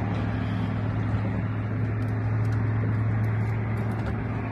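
Boat motor running steadily with a low, even hum.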